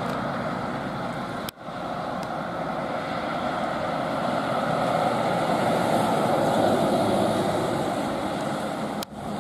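Fire engine driving past on the road: engine and tyre noise that swells to a peak as it goes by and then eases off, with no siren. A brief break in the sound about a second and a half in.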